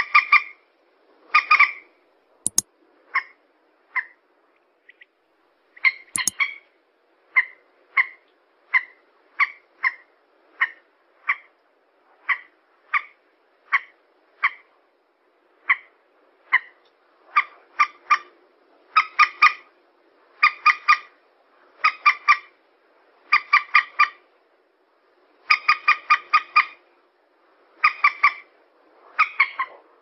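Common moorhen calls repeating, as in a bird-lure recording: short, sharp notes, single at first and then in quick bursts of three or four from a little past halfway. A few sharp clicks sound in the first several seconds.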